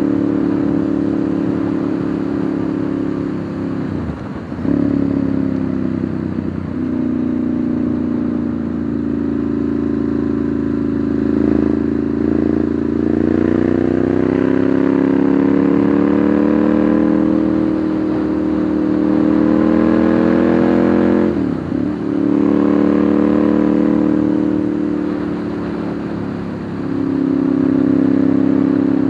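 Ducati Monster 1100's air-cooled V-twin engine running under way, heard from the rider's position. Its pitch and loudness dip briefly twice, a few seconds in and about three-quarters through, and the pitch rises slowly as the bike accelerates in the middle.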